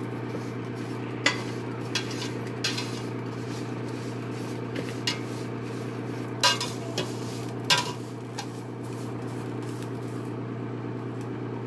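A slotted spatula scraping and knocking against a stainless steel pot as vermicelli noodles are stirred and toasted in oil, in scattered clicks, the loudest about six and a half and seven and a half seconds in. A steady low hum runs underneath.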